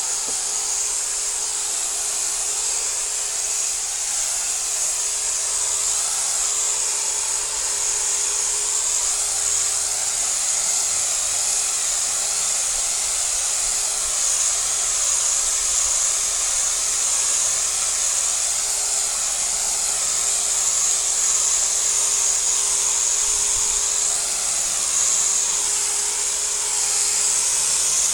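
Electric car polisher running steadily while buffing painted body panels, a constant motor whine and high hiss with slight wavering as the pad is worked across the paint.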